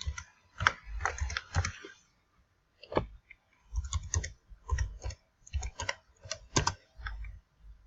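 Typing on a computer keyboard: irregular runs of key presses, with a short pause about two seconds in.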